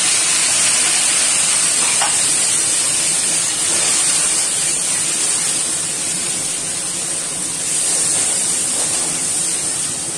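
Onion paste and water sizzling hard in hot oil in a kadai: a loud, steady hiss, easing a little past the middle and rising again.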